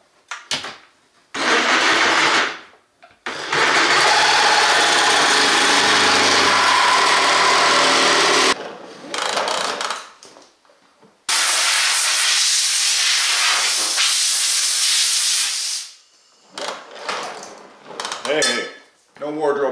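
Cordless reciprocating saw cutting through a metal side plate: a short burst, then a long steady cut of about five seconds. Later a compressed-air blow gun hisses steadily for about five seconds, clearing chips off the cut plate, followed by a few short puffs near the end.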